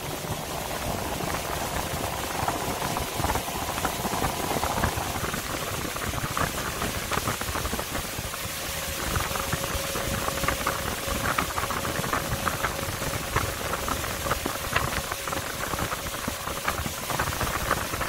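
Small fishing boat under way: its motor running steadily while water churns and splashes along the hull, with a spattering crackle of spray from about six seconds in.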